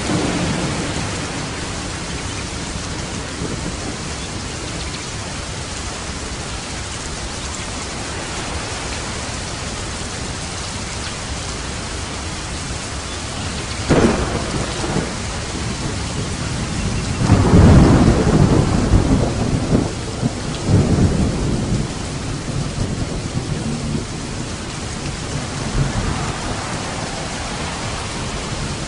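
Steady rain with thunder: a sharp thunderclap about halfway through, then a long low rolling rumble a few seconds later and a fainter one near the end.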